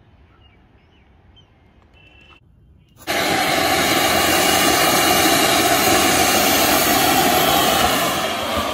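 A large Diwali anar (flower-pot fountain firework) catches about three seconds in and sprays sparks with a loud, steady hissing rush, which begins to die down at the very end.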